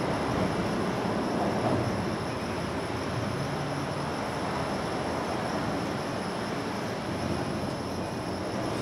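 Steady low rumble of distant transport, swelling slightly about one and a half seconds in, with a faint steady high tone above it.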